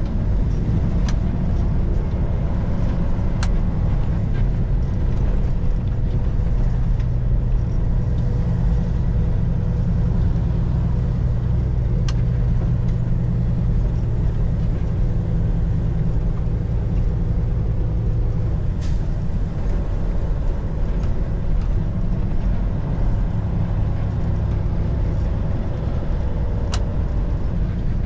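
Semi truck's diesel engine droning steadily under way, with road noise and a few sharp clicks. The engine tone eases slightly about two thirds of the way through.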